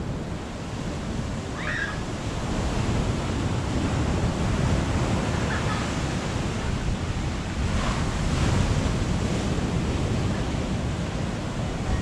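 Strong wind and surf in a storm, a steady rush of noise that swells and eases, with wind buffeting the microphone.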